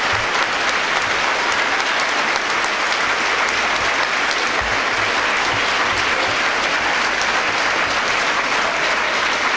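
An audience applauding, steady and sustained.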